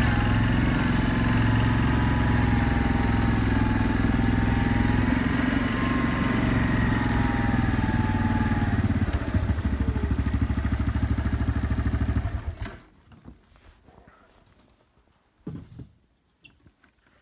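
Yamaha Grizzly ATV engine running under way with a wavering whine. About nine seconds in it drops to an even idle, then it is switched off and cuts out abruptly. A soft knock follows near the end.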